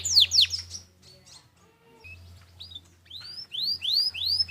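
Domestic canary singing: a fast run of steep downward-sweeping whistled notes that stops under a second in, a pause with a few faint notes, then rising upswept notes repeated about three times a second toward the end.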